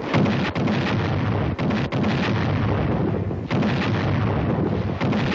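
Howitzer battery firing: a sharp report right at the start, then further gun reports about every second or so over a continuous heavy rumble.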